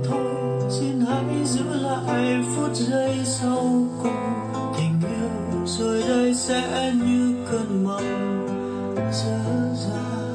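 A Vietnamese pop ballad's instrumental passage, with acoustic guitar over a steady bass line and no singing, played back through a portable Bluetooth speaker during a sound test.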